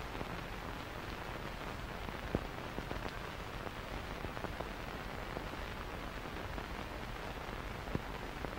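Steady hiss and crackle of an old film soundtrack, with scattered clicks and pops, the sharpest about two and a half seconds in.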